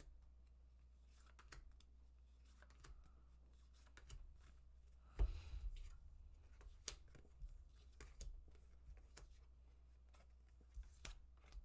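Tarot cards being handled and laid out on a table: faint scattered card snaps and taps, with one louder knock about five seconds in.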